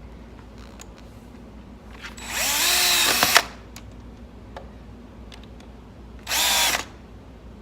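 Power drill driving long screws into plywood: a burst of about a second with the motor speeding up as it starts and a sharp click at its end, then a short half-second burst a few seconds later.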